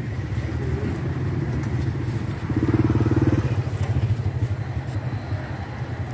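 Motorcycle engine running close by, its pulsing rumble loudest about halfway through and easing off afterwards.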